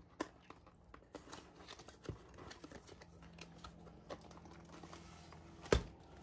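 Handling of a diamond-painting kit box and its packaging: scattered small taps, clicks and rustles, with one louder knock near the end.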